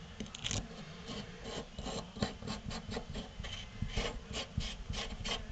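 Kitchen faucet parts being handled and fitted back together during reassembly: irregular scraping and rubbing with small clicks, several a second.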